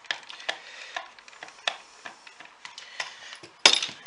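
Small screws being worked out of a cheap multimeter's plastic case with a screwdriver: a scatter of light clicks and scrapes. Near the end comes one sudden, loud clatter as the case comes apart.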